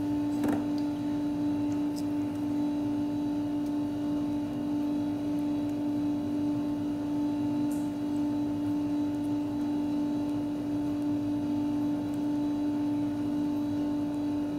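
A steady electrical or mechanical hum with one strong low tone and a few fainter higher tones, unchanging throughout, with a couple of faint clicks.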